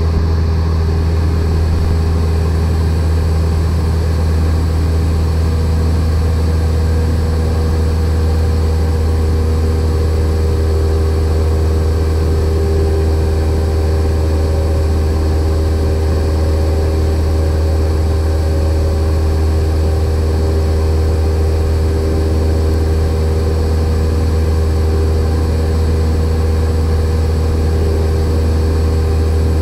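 Steady drone of a light airplane's piston engine and propeller in cruise, heard inside the cockpit, even in level and pitch throughout.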